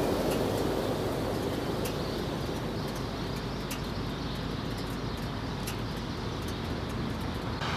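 Steady low rushing rumble that eases slightly over the stretch, with faint scattered ticks in it.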